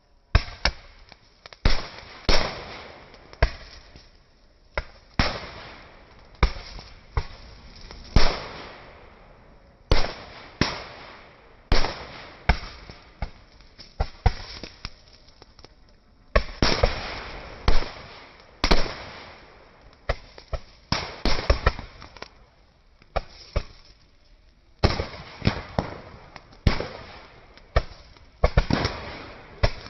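Small firecrackers going off one after another: sharp bangs at irregular intervals, sometimes in quick strings of several, each with a short crackling tail.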